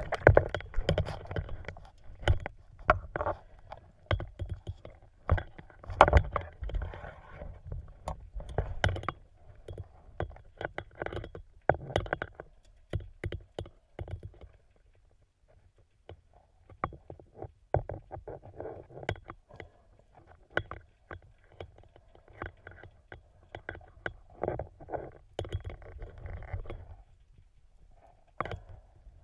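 Water sloshing and splashing with many sharp knocks and clicks, as picked up by a camera in a waterproof housing during a spearfishing dive. It goes quieter for a few seconds in the middle.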